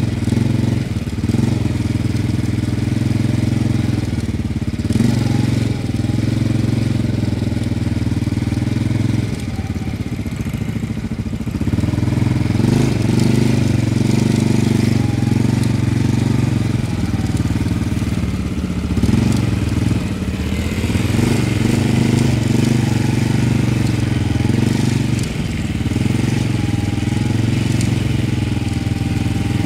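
Quad bike (ATV) engine running as it rides along at low speed, its pitch wavering up and down with the throttle several times.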